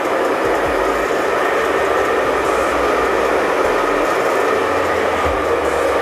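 Force Barber hair dryer running steadily: a loud rush of blown air over a steady motor whine.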